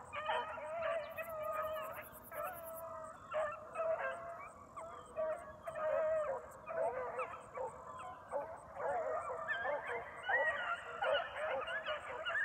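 A pack of beagles baying on a rabbit's track, many overlapping voices giving tongue without a break. The dogs have picked the line back up after a check and are driving the rabbit through thick cover.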